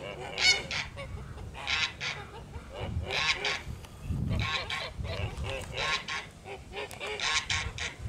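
A flock of domestic geese honking: many short, repeated honks from several birds, some overlapping.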